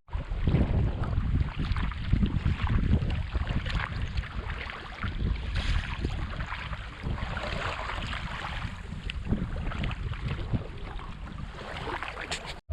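Wind buffeting the microphone, with rushing, splashing seawater underneath.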